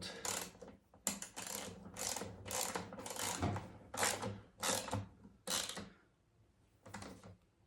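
Socket ratchet wrench clicking in short repeated strokes, about two a second, as a 10 mm nut is run down and tightened. It stops a little before the end.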